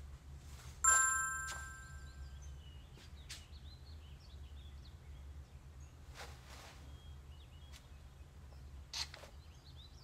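A single bright chime about a second in, several clear tones struck at once and fading over about a second and a half. Faint birds chirp behind it, and there is a short click near the end.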